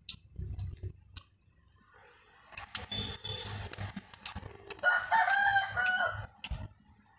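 A rooster crowing once, a held call of about a second and a half starting about five seconds in, the loudest sound here. Before it, close chewing and crunching of raw greens and rice.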